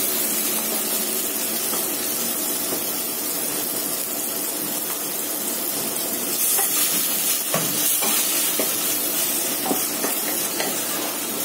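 Chopped roasted peppers and tomato frying in olive oil in a pot, sizzling steadily while a wooden spatula stirs and scrapes them. A few light knocks of the spatula against the pot come a little past halfway.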